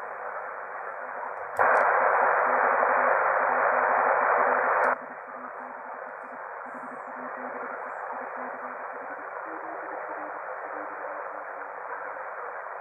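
Shortwave receiver static hiss from a loudspeaker, with the narrow, thin sound of a DSP noise-cancelling audio filter and a faint pulsing low tone underneath. After a click about one and a half seconds in, the hiss jumps much louder for about three seconds, then drops back after another click as the noise-cancelling unit is switched.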